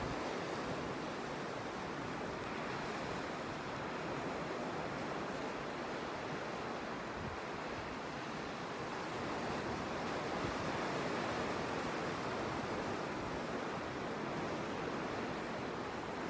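Sea waves washing steadily onto a rocky shore, an even rushing surf with wind buffeting the microphone underneath.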